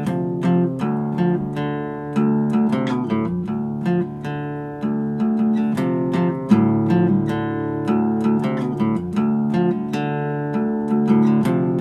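Intro music on acoustic guitar: plucked and strummed notes in a steady rhythm.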